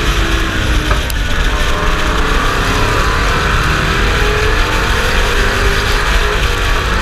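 Pro Truck stock car's racing engine running hard at speed, heard through a hood-mounted camera, its note rising and falling slightly over a steady heavy rumble and wind noise, with one brief click about a second in.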